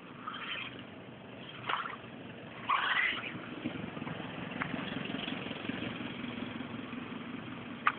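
Radio-controlled Tamiya Hummer model truck driving on pavement, its electric drive running with a steady hum. There are a few short noisy bursts in the first three seconds.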